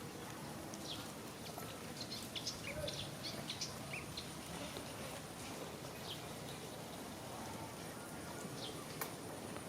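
A run of short, high chirping calls, bunched in the first few seconds and then scattered, over a steady outdoor hiss with a thin high whine; a single sharp click about nine seconds in.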